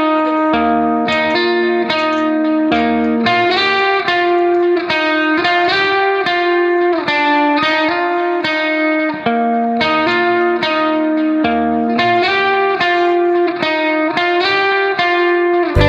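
Background instrumental music: a plucked guitar playing a steady run of notes over sustained chords.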